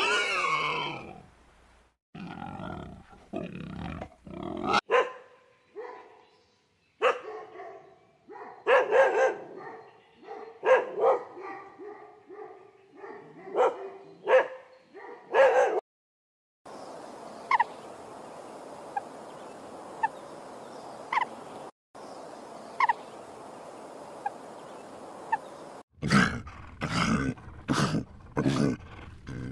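A dog's short yips and whimpers, repeated over several seconds. Then a steady hiss with a soft chirp every second or so, and near the end a lion's deep grunting roars.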